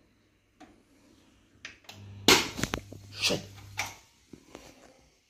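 Onkyo A-9155 amplifier failing on power-up: a low mains hum comes in about two seconds in with a sharp loud crack, then a run of crackling pops for about a second and a half before it all cuts out. It is the sign of an electrolytic capacitor fitted the wrong way round blowing.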